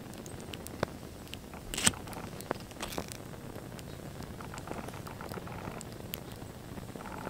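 Two burning model cars crackling as their flames flicker, with irregular sharp pops and one louder crack about two seconds in.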